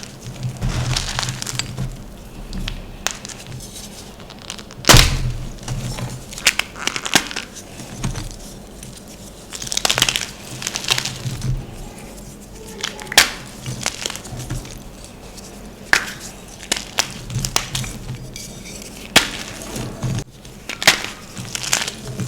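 Blocks of gym chalk being crushed and crumbled, with many sharp cracks and crunches. The loudest snap comes about five seconds in.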